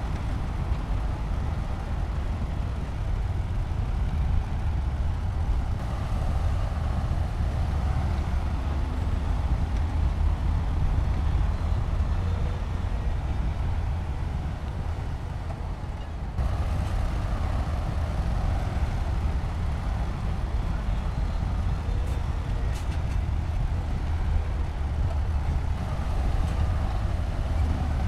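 Heavy diesel construction machinery running steadily under load, a deep continuous rumble, with an abrupt change about 16 seconds in.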